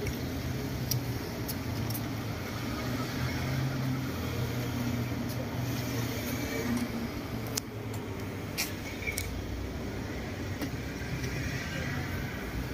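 City road traffic: car and van engines running as vehicles pass and idle close by, a steady low hum under an even rush of noise, with a few light ticks scattered through it.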